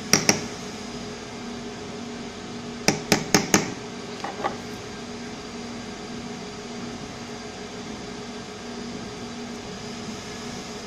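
Steady background hum with sharp light clicks as the soldering iron and the phone board with its SIM card reader are handled: two just after the start, a quick run of four about three seconds in, then two fainter ones.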